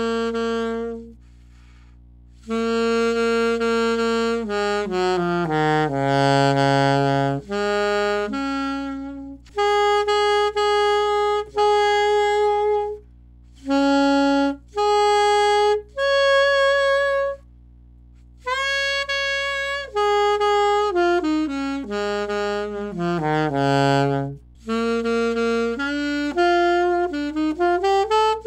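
Alto saxophone with a hard-rubber Boston Sax Shop M-Series mouthpiece, played solo. It plays held notes and short phrases with brief pauses between them, falling runs of notes, and a quicker phrase winding up and down near the end. The tone has a warm, thick core and is a little darker than usual.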